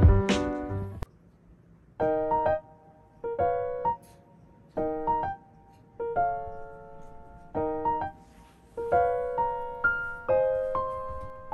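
Background music: a soft electric-piano melody played in short phrases, with brief pauses between them.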